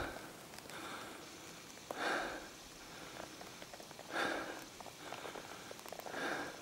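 A person breathing hard in a steady rhythm, one loud breath about every two seconds, with faint crunches and clicks of skis and poles in the snow between breaths.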